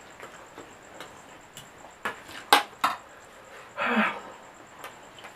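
A utensil clinks sharply against a plate or bowl three times while instant fried noodles are eaten, the middle clink the loudest. A short, noisier eating sound follows about four seconds in.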